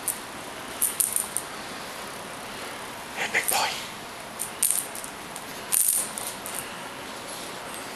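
Cat wand toy jingling and clinking in short bursts as a kitten bats at it, with one fuller, lower sound a little over three seconds in.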